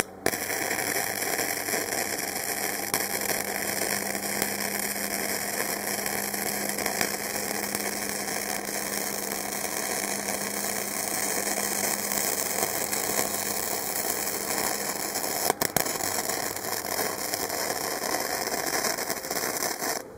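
Flux-core wire welding arc from a Harbor Freight Easy-Flux 125 welder, crackling steadily as a bead is run on a stainless V-band flange and mild steel pipe. It starts just after the beginning and stops just before the end, with a brief break about three-quarters of the way through; the welder suspected a kink in the feed wire.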